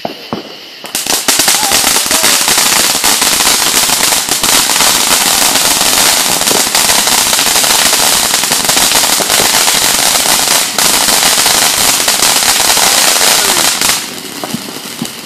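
Ground fountain fireworks spraying sparks with a dense hiss and rapid crackling. It starts about a second in after a couple of pops and dies down near the end.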